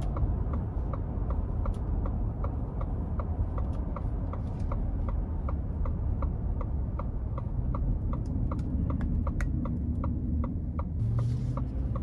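Turn-signal indicator ticking steadily inside a 2022 Ford F-150's cab, about three even clicks a second, over the low rumble of the 5.0 V8 and the road.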